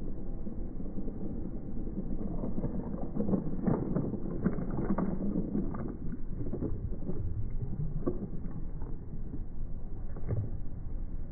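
Battery-powered toy train engine and carriages tumbling off the end of their track into a swimming pool: a scatter of small splashes and knocks from a few seconds in until near the end, over steady low background noise.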